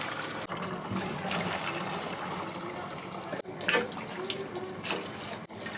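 Restaurant kitchen work: a steady liquid, rushing noise, with a few sharp clatters about three and a half and five seconds in.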